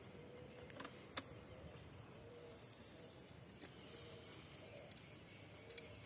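Near silence in open woods, broken by one sharp click about a second in and a few fainter ticks later.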